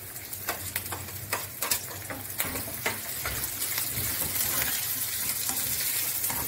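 Chopped onion sizzling in hot oil in a frying pan while a wooden spatula stirs it, with clicks of the spatula against the pan in the first few seconds. The sizzle then becomes steadier and a little louder.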